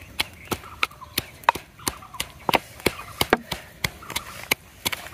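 Wooden pestle pounding in a wooden mortar: sharp, even knocks about three a second.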